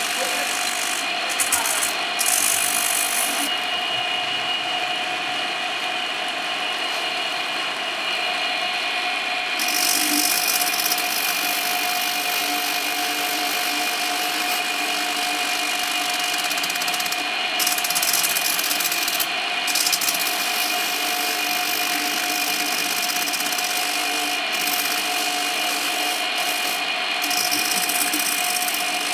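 Handheld power buffer with a wire brush wheel running steadily with a whine while it scrapes across the rubber of a bus tyre's sidewall, roughing it up for a repair. The high scraping hiss drops out for about six seconds a few seconds in, and briefly twice more later, while the tool keeps running.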